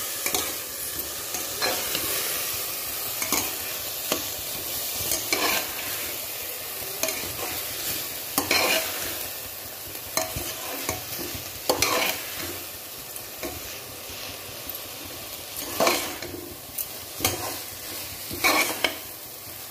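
Metal spatula stirring raw rice and urad dal in hot ghee in a pressure cooker: a steady sizzle with irregular scrapes and knocks of the spatula against the pot every second or two.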